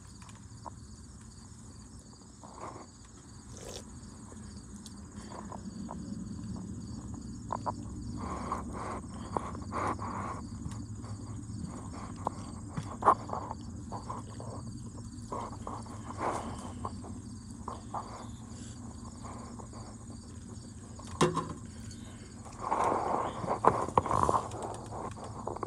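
Steady insect chirring, an even, rapid high pulsing, with scattered light clicks and knocks and a louder rustling stretch near the end.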